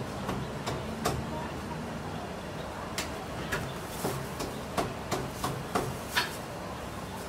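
About a dozen irregular sharp knocks and clatters, thicker and louder in the second half, over a steady street background hum.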